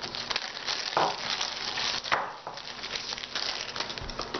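Crinkling and rustling of packaging being handled by hand, with two louder crackles about a second and about two seconds in.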